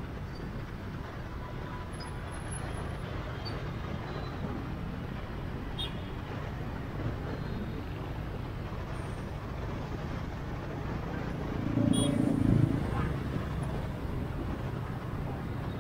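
City street traffic heard from a moving motorbike: steady engine and road noise, swelling louder for about a second and a half around twelve seconds in.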